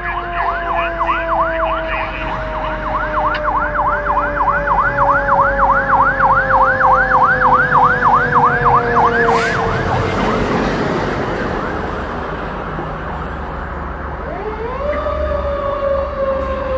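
Fire engine sirens while responding: a fast electronic yelp at about three cycles a second over a second, steady siren tone that slowly falls in pitch. The yelp stops about ten seconds in, a rush of engine and road noise follows as the truck passes, and near the end the steady tone rises sharply again, then slowly sinks.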